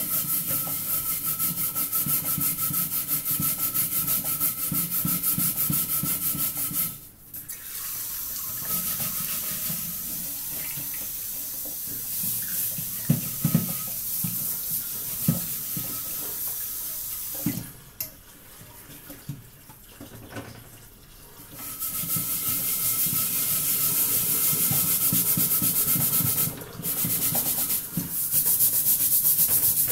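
Fast, steady rubbing strokes of hand-scrubbing a burnt, blackened metal wok in a stainless steel sink with a scouring paste. The scrubbing stops about seven seconds in. Water runs into the sink and the pan knocks against the steel a few times. The scrubbing resumes near the end.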